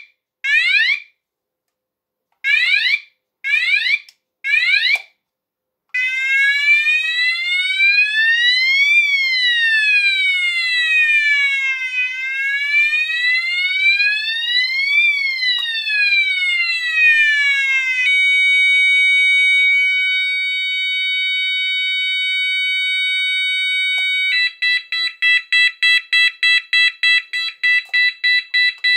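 Sonos DC multi-tone fire-alarm sounder cycling through its tones, loud. Short sweeping bursts with gaps come first. Then a slow wail rises and falls, about three seconds each way. Then a steady tone, and near the end a rapid pulsing tone, about two pulses a second.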